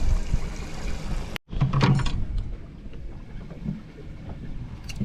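Wind rumbling on the microphone aboard a small fishing boat. The sound is broken by an abrupt cut to silence a little over a second in, followed by a brief voice-like sound.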